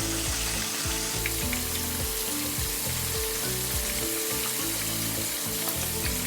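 Flour-dredged chicken pieces frying in hot peanut and vegetable oil in a frying pan, a steady sizzle.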